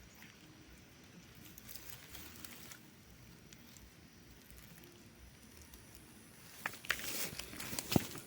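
Footsteps and rustling through dry garden plants: faint at first, then louder about two-thirds of the way in, with sharp crackles and snaps from dry stems and pods.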